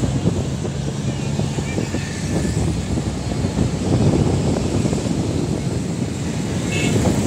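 Road traffic noise with vehicle engines rumbling and wind buffeting the microphone.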